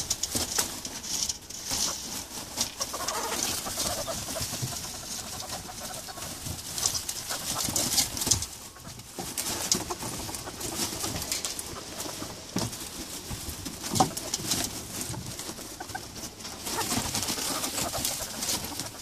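Two ferret kits, one a ferret-polecat hybrid, play-fighting: rapid clucking chuckles (dooking) amid scuffling and rustling in wood shavings and straw.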